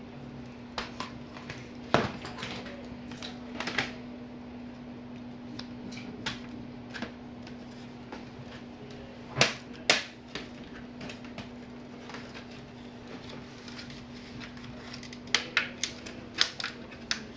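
Sharp plastic clicks and snaps as a laptop's plastic case is pried apart with a plastic opening pick, its clips releasing. The loudest pair of snaps comes about halfway through, and a quick run of clicks comes near the end. A steady low hum runs underneath and stops shortly before the end.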